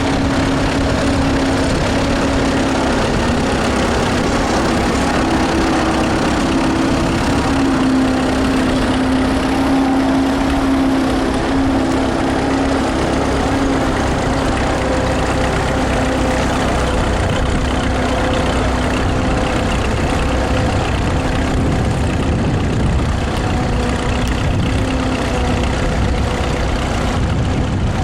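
Vintage tractor engine running steadily under load, with an even, unbroken drone.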